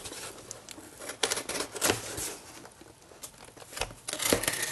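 Cardboard shipping box handled and its packing tape pulled open, with scattered scrapes and clicks. A denser rustling and tearing comes near the end.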